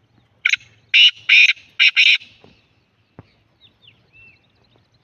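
Black francolin calling: a loud, harsh phrase of five grating notes over about two seconds, the last two close together. Faint thin chirps follow near the end.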